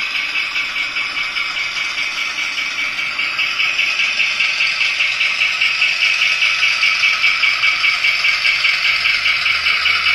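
An N scale Rapido GMD-1a diesel locomotive's DCC sound decoder playing its engine sound through a tiny on-board speaker: a thin, rhythmic chugging rattle at about five beats a second.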